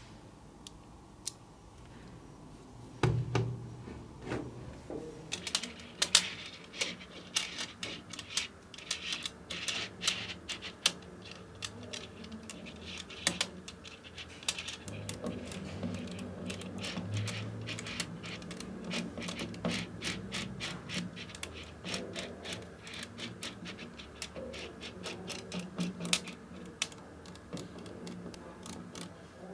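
Small magnetic balls clicking and snapping against one another as they are pressed and rolled onto a cylinder of the same balls: a fast, irregular run of sharp little clicks with a few louder snaps, over soft rubbing of the balls in the hands.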